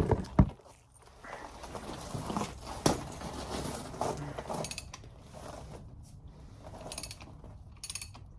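Ratcheting handle of a copper crimp shutoff tool clicking in slow, intermittent strokes as it is tightened to squeeze 3/4-inch copper tubing shut and stop the water flow. A few loud metal knocks from handling the tool come right at the start.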